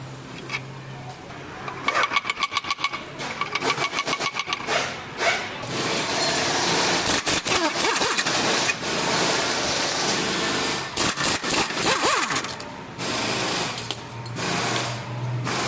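Power impact wrench running in several bursts: first short stretches of rapid, even hammering, then longer runs, working the bolts of an engine mount.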